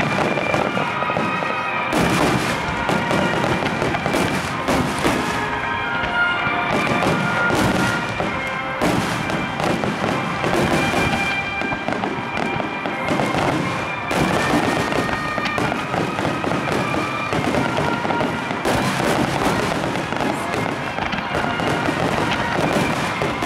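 Dense, continuous barrage of aerial firework shells and starmines bursting one after another, booming and crackling, with fresh waves of bursts about 2, 9, 14 and 19 seconds in. Music plays underneath, heard through a camcorder's built-in microphone.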